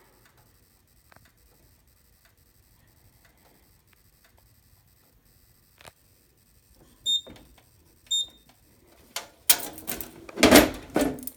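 Two short, high electronic beeps about a second apart, then a burst of loud knocking and rustling from handling.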